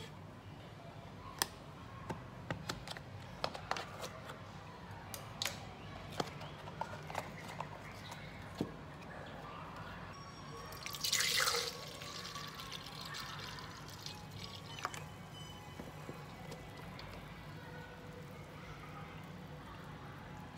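Light clicks and taps of a milk carton and its plastic clip being handled, then about halfway through a splash of about a second as milk is poured into a plastic blender jug.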